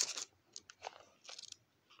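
Thin Bible pages being handled and turned: a paper rustle right at the start, then a few small crackles over the next second and a half.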